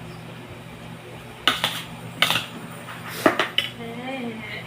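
Metal cooking utensils clinking against a pan while stirring, with several sharp strikes in quick pairs and runs. A steady low hum runs underneath.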